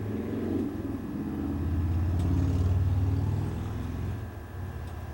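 A low rumble that swells over about two seconds and fades again, with a faint steady hum above it.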